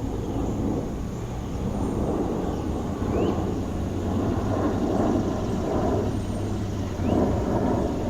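Steady city traffic noise from cars passing on nearby roads, swelling and easing over a few seconds. Faint short rising chirps sound a few times above it.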